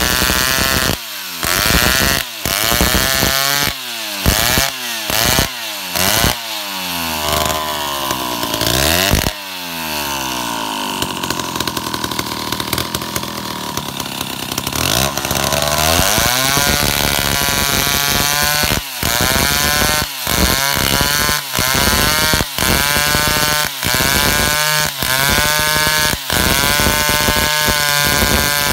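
Stihl two-stroke chainsaw cutting a log, its engine revving up and down over and over in short bursts. About halfway through it runs steadier for several seconds with the bar in the cut.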